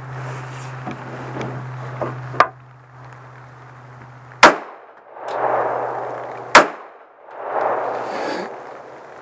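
Two pistol shots about two seconds apart, each a sharp crack, with a fainter sharp crack a couple of seconds before them.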